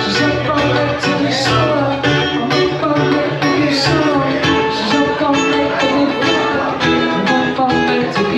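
Live acoustic guitar strummed steadily, with a male voice singing.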